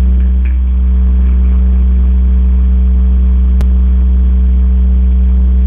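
A loud, steady low hum at a fixed pitch with no rise or fall, with one sharp click about three and a half seconds in.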